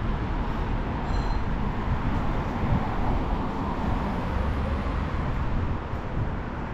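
Road traffic on a city street: cars passing, a steady noisy rumble.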